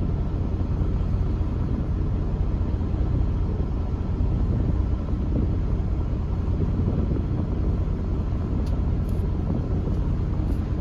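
Semi-truck's diesel engine idling, a steady low rumble heard inside the cab.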